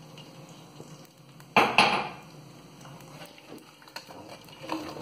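Two sharp knocks of a utensil against the cooking pan, close together about a second and a half in, with a short ring after them, among faint scraping of a spoon stirring crushed rosin into used frying oil.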